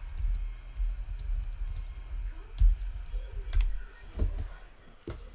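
Typing on a computer keyboard: scattered key clicks with dull low thumps, the loudest about two and a half seconds in.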